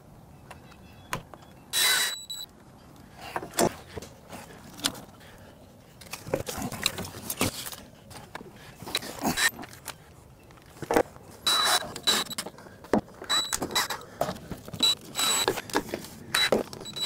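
Screw gun driving screws in several short bursts with a steady whine, among clicks, knocks and rattles of parts and tools being handled.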